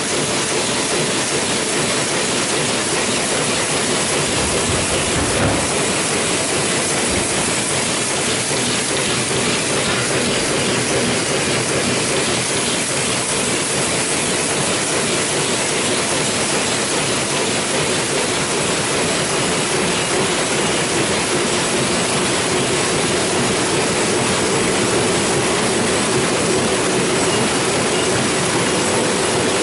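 Heidelberg Speedmaster SX 74 five-unit sheetfed offset press running: a loud, steady mechanical clatter and rush that holds unchanged throughout.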